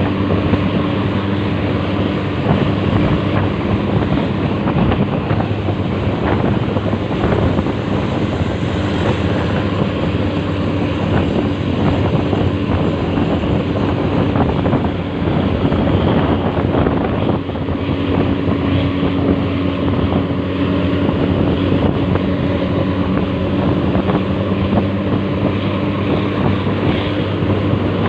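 A vehicle engine running at a steady speed under heavy wind rushing over the microphone, as when filming from a moving vehicle.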